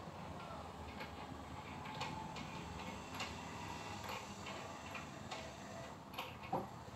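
Scattered light clicks and taps, roughly one a second, from a wooden bed frame and its fittings being handled during assembly, a little louder near the end.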